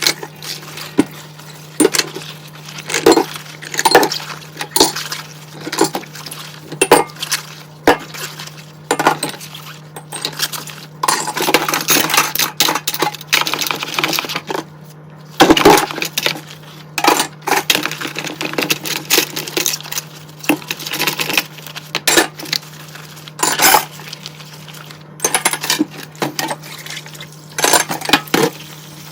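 Dishes and cutlery clinking and knocking against each other, irregularly and often, as they are handled and washed by hand in a sink. A steady low hum runs underneath.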